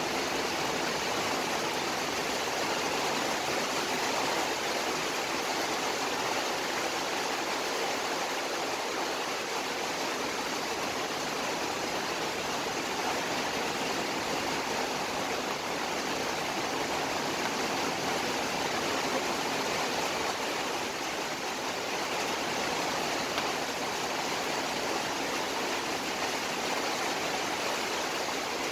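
Sugar syrup at a rolling boil in a wide metal pan with rosogolla (chhena balls) cooking in it: a steady bubbling hiss.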